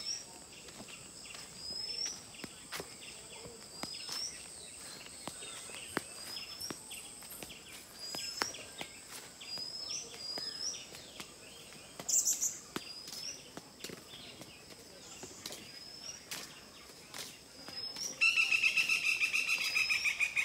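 Wild birds calling in trees and bushes: one repeats a short rising chirp every second or two over a thin, steady high background tone. About two seconds before the end, a louder, rapid rattling call breaks in.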